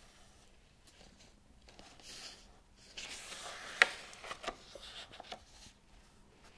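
Pages of a hardcover book turned by hand: a soft paper swish about two seconds in, then a rustle with one sharp snap of a page near the middle, followed by a few light paper clicks and rustles.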